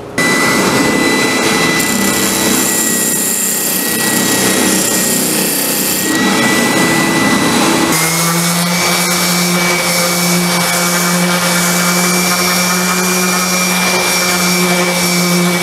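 Electric random orbital sander running steadily while sanding the wood of a cedar box, a continuous motor whine. Its tone changes abruptly about eight seconds in to a steadier, deeper hum.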